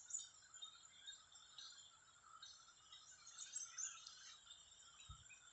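Faint outdoor ambience of birds and insects chirping: many short, scattered high calls, with a soft low knock about five seconds in.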